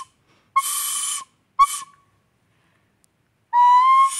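Plastic soprano recorder blown hard in shrill, breathy high notes while trying for its highest note. There is a short note about half a second in and a brief one near 1.6 s, a pause, then one long note from about 3.5 s that wavers slightly upward. It is loud.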